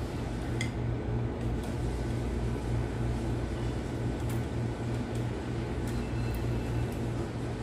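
A steady low mechanical hum with an even pulse, with a few faint short metal clicks scattered through it.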